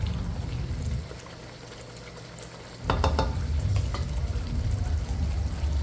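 Chicken curry sizzling in a pot as it cooks down and is stirred, with a few short knocks a little under three seconds in.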